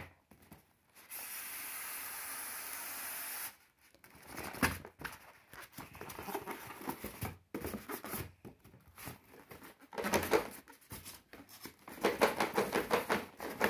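Cardboard toy packaging being unpacked: a steady scraping hiss of cardboard sliding against cardboard starts about a second in and lasts a couple of seconds, followed by bursts of rustling, scraping and knocks as the box is handled on a wooden table.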